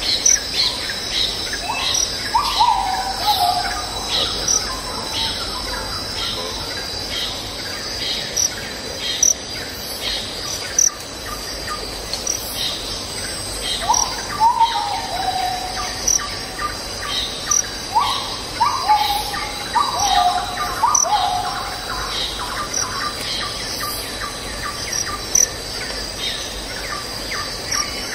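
Birds and insects calling: a steady high insect drone with short high chirps repeating all through, and a bird giving falling whistled phrases, once a couple of seconds in, again about halfway, and in a longer run a few seconds after that.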